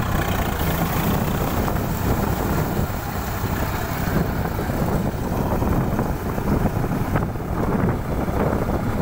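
Swaraj diesel tractor engine running steadily while it drives a rotavator through a flooded paddy field.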